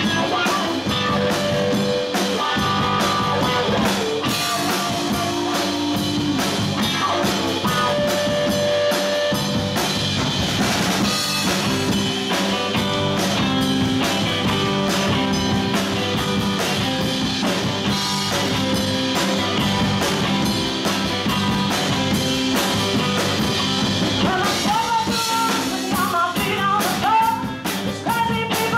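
Live rock band playing: electric guitars, bass and drum kit, with a woman singing lead.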